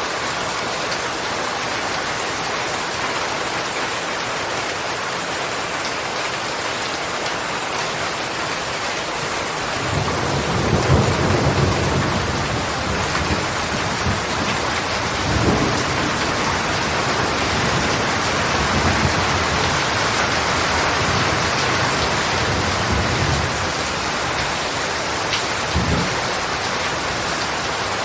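Steady rain falling, with thunder rumbling in low from about a third of the way in. The thunder swells several times, loudest soon after it begins.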